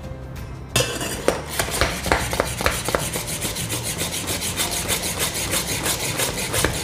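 Hand-pump milk frother being pumped: the plunger's mesh strokes rapidly up and down through the milk in the pitcher, making an even run of rasping strokes that starts about a second in. The pumping is whipping the milk into thick foam.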